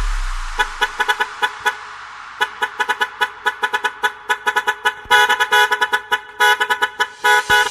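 Sampled truck air horn chopped into short rhythmic stabs in an electronic dance remix. A low bass rumble fades out over the first second. The horn stabs then come in a steady rhythm and grow longer and louder from about five seconds in, building toward the next drop.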